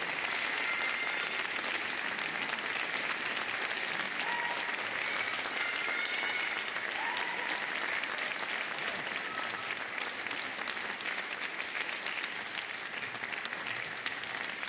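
Audience applauding: a steady sound of many hands clapping that eases slightly in the second half.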